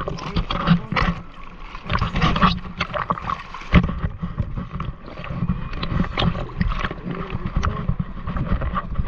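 Sea water lapping and splashing against a surfboard right by the microphone, in irregular splashes over a low rumble of wind on the microphone.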